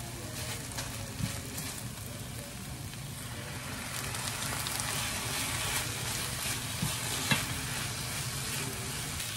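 Shredded chicken and cabbage sizzling in a frying pan, stirred with a silicone spatula that scrapes and clicks against the pan now and then. The sizzle grows a little louder about four seconds in, as a soy-based sauce is poured into the pan.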